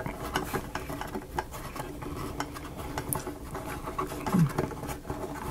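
Small, irregular clicks, taps and light scraping of tiny miniature-kit pieces being handled and pressed into place by fingers. About four seconds in, a brief low hum of a voice drops in pitch.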